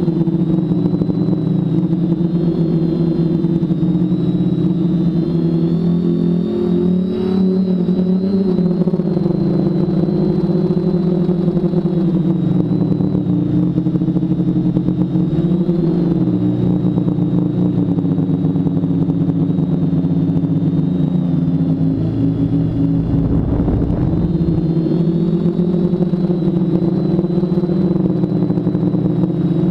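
Quadcopter's four BirdDog 900kv brushless motors spinning 10x4.5 propellers in flight, a steady hum whose pitch rises and falls gently as the throttle changes. A brief low rumble comes about 23 seconds in.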